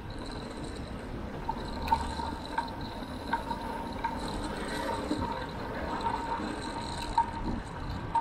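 Riding noise from a bicycle-mounted action camera: low road and wind rumble with a thin, steady high whine and scattered sharp ticks.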